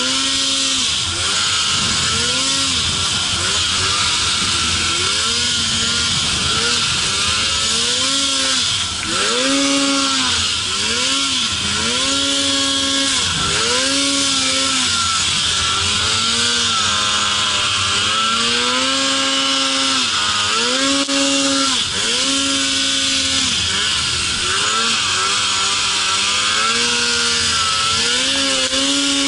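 Snowmobile engine revving up and down over and over as the rider works the throttle through turns in deep powder snow, its pitch climbing and dropping every second or two, over a steady hiss.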